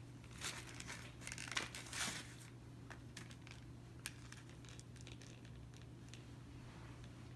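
Packaging crinkling and rustling as a child handles small gifts, mostly in the first two seconds or so, then a couple of faint ticks over a quiet, steady low hum.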